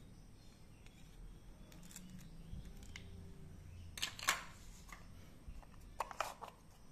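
Plastic toy fruit pieces and utensils being handled, making a few short plastic clicks and knocks: a faint one about two seconds in, the loudest cluster about four seconds in, and another about six seconds in.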